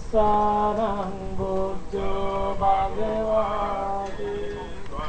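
A monk's male voice chanting a Theravada Buddhist prayer, slow and melodic, each syllable held as a long steady note before stepping to another pitch.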